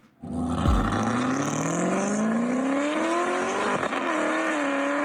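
Car engine accelerating hard, its pitch climbing steadily for about three and a half seconds, then a quick gear shift near the end, after which it pulls again at a lower pitch.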